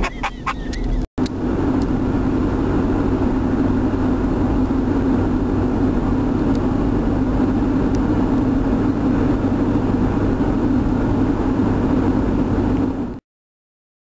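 Steady engine and road drone heard from inside a moving car's cabin, with a few sharp clicks at the start; the drone holds unchanged and cuts off suddenly near the end.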